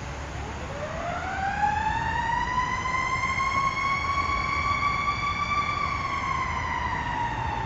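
Fire engine siren wailing on an emergency run: one long slow rise in pitch that levels off and begins to fall near the end, over a low rumble.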